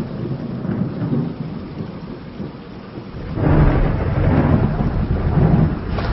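Steady rain with a loud roll of thunder rumbling in about halfway through, deep and heavy.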